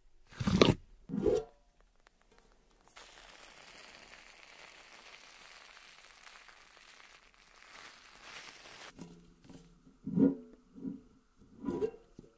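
Fluffy slime squished and torn by hand in a tin: two loud crackling squishes in the first second and a half, then a steady soft hissing rustle for several seconds as the slime is worked. Several short knocks with a brief ring come near the end as the tin is handled.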